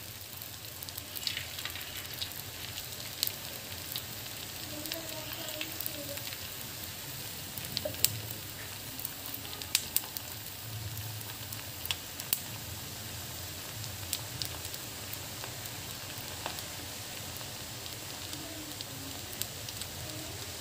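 Batter-coated raw banana and potato slices deep-frying in hot oil in a clay pot: a steady sizzle with scattered sharp pops and crackles.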